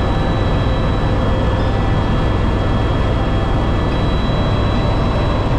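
Helicopter in flight heard from inside the cabin: a steady low rotor drone with a constant high engine whine over it.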